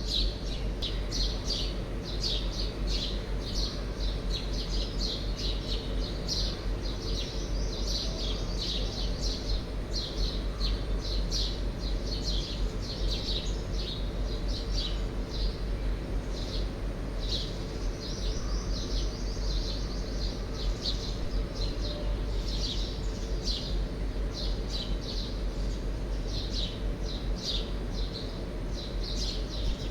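Small birds chirping, many short high chirps in quick succession throughout, over a steady low hum.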